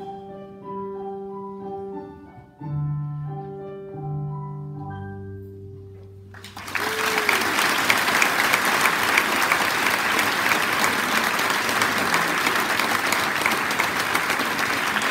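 String orchestra playing the last quiet, held notes of a piece; about six and a half seconds in, the audience starts applauding, loud and steady.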